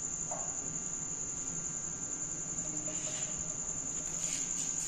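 A cricket trilling steadily at a high pitch, the loudest sound throughout, with a few faint soft sounds from melted ghee being poured into a pot.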